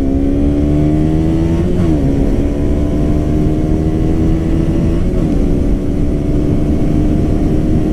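2017 KTM Duke 125's single-cylinder four-stroke engine on its stock exhaust, pulling hard under acceleration. Its pitch climbs slowly, drops at an upshift about two seconds in and again about five seconds in, then climbs again each time.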